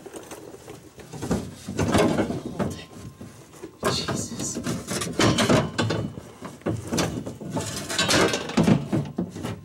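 Fuel tank being tilted and shifted on a floor jack under an SUV: an irregular run of scraping, knocking and clattering as it is worked against the underbody, with the loudest bursts about two, four, five and eight and a half seconds in.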